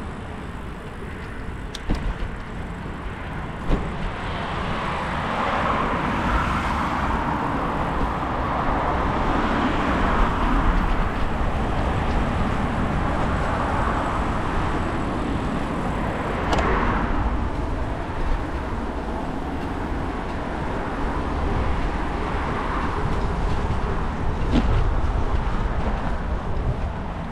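Bicycle ride on damp tarmac: steady low wind rumble on the handlebar camera and tyre hiss, swelling and easing as the ride goes on, with a few sharp knocks, the clearest about 16 seconds in.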